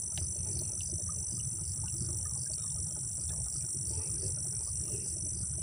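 Crickets and other insects trilling steadily in two high-pitched bands, over a low, even rumble and a few faint small ticks.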